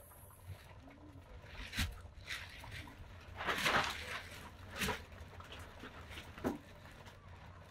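Sounds of an open wood cooking fire and work at the pot. A few sharp pops and knocks ring out, with a brief rustling scrape about halfway through.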